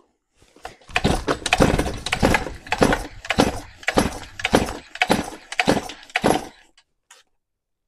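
Stihl MS 362 two-stroke chainsaw engine being cranked over by repeated pulls of the recoil starter rope, with a compression tester in the spark plug hole, throttle wide open and decompression valve out. About ten regular pulses come a little over half a second apart and stop near the end; the engine is showing healthy compression, just under 150 psi.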